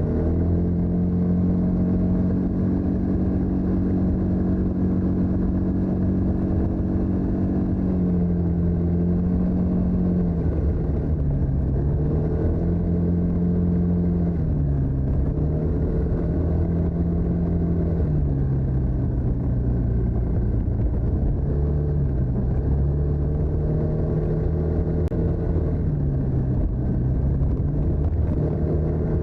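TVS NTorq 125 scooter's single-cylinder four-stroke engine and stock exhaust running under way. The note holds steady for the first several seconds, then drops and picks back up several times as the throttle is eased and opened again.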